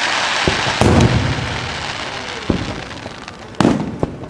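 Aerial firework shells bursting overhead: a crackling hiss at the start, then about four sharp booms, the loudest about a second in and near the end, each with a short rumbling tail.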